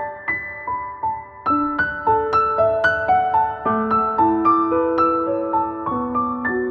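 Background instrumental music: a slow melody of single notes, each struck and fading, about two or three a second.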